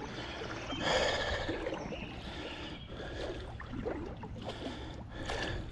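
Creek water splashing and sloshing in irregular bursts while a hooked smallmouth bass is fought in the current, the loudest splash about a second in, with hard breathing.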